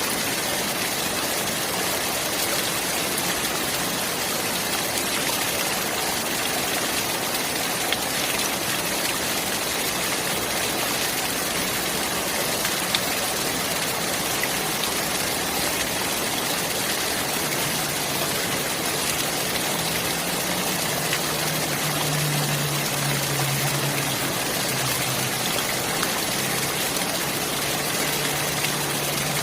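Clear water running steadily in an even rush. From about halfway through, a faint low hum sits under it.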